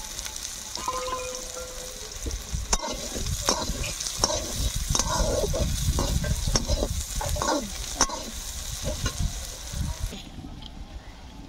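Sliced onions sizzling in oil in an aluminium kadai, with a wooden spatula scraping and knocking against the pan as they are stirred. The sizzle stops abruptly about ten seconds in.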